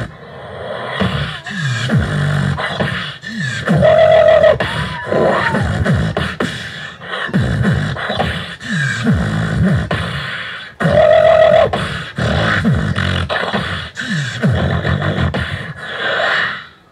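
Solo beatboxing into a handheld microphone, every sound made with the mouth and no effects: drum-kit hits with deep falling bass sweeps and a held hum, the phrase repeating about every seven seconds. It cuts off suddenly near the end.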